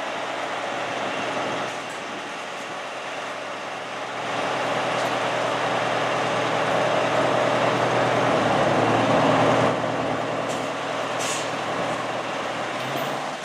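Fire truck diesel engines running in the firehouse bay, getting louder from about four seconds in and dropping back near ten seconds, with a couple of short air hisses near the end.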